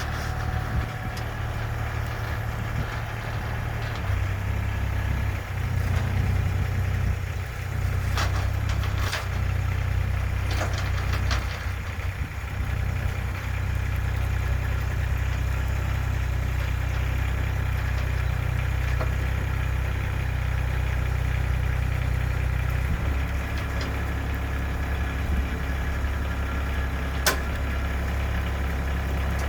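Hitachi EX40 mini excavator's diesel engine running steadily, with a few sharp clicks about eight to eleven seconds in and again near the end.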